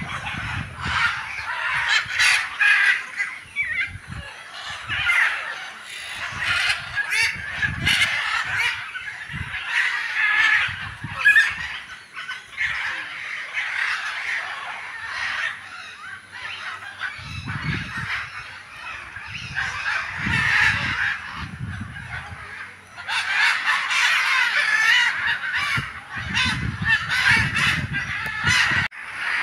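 A chorus of many birds in aviary enclosures, calling and squawking at once with short, harsh, honk-like calls. It goes on without a break, with scattered low rumbles now and then.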